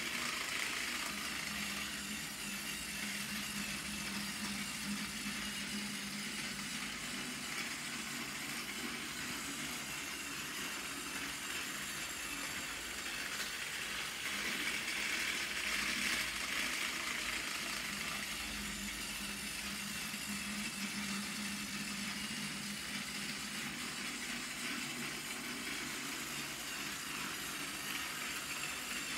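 Battery-powered Plarail toy engine's small motor and gearbox whirring steadily as it runs on plastic track, with its tender and trucks rattling behind. The sound swells and fades about every 15 seconds.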